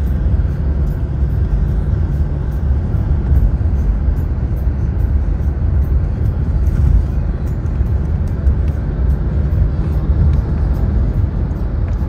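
Steady low rumble of a moving vehicle, road and wind noise heard from on board, with faint background music.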